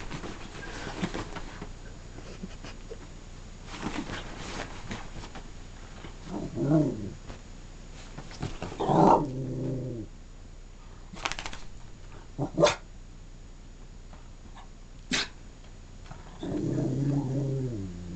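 Whippet 'talking': drawn-out, growly grumbling moans that bend up and down in pitch, three times, with a few short sharp sounds between them. Near the start, bedding rustles as the dog rolls about.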